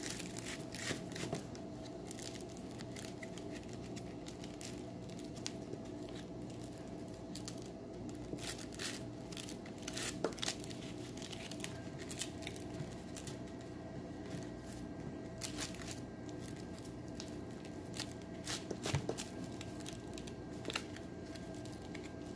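Three-strand synthetic rope rubbing and scratching in the hands as its strands are pulled through and tightened in a monkey fist knot: irregular short scratchy rubs and clicks, over a steady faint hum.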